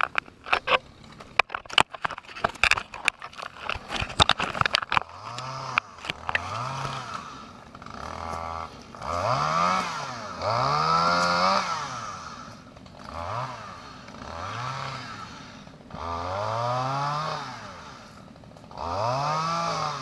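Clicks and knocks of the camera being handled, then a small engine off to one side revving up and dropping back again and again, each rev lasting about a second or two.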